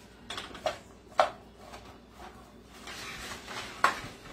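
Kitchen utensils clacking as a spoon is taken from the utensil holder, then a spoon knocking and scraping in a pan as a block of raw ground beef is broken up. The sharpest clacks come about a second in and again near the end.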